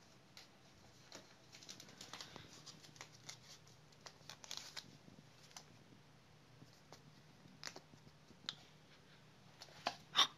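Faint scattered rustling, scratching and light taps as a kitten paws and claws at a white rolled tube on a shag rug. A few sharper taps come near the end.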